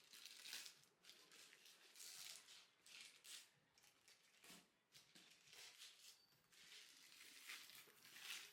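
Faint, scattered rustling and scraping of packaging being handled as a parcel is opened.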